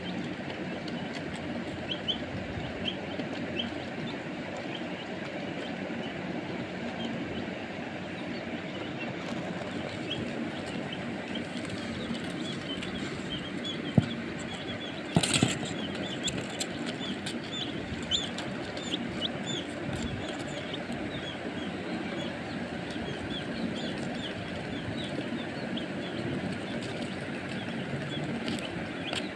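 Young chicks peeping, short high cheeps repeated many times over, with a couple of sharp knocks about halfway through.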